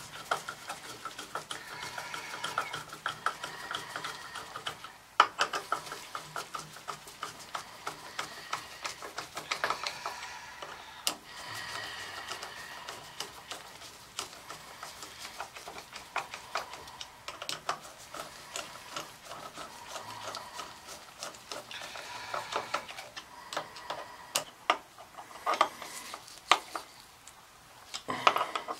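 Rapid ticking, clicking and metal scraping of hand tools and brass fittings being worked into an oil burner's Suntec A2VA-7116 fuel pump while a new oil line is connected.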